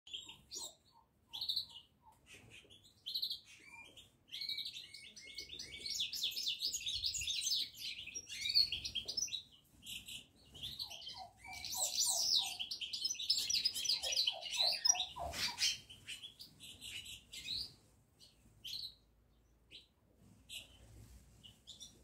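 Small songbirds chirping and twittering, with fast trilled runs of song that swell in the middle and thin out to scattered chirps near the end.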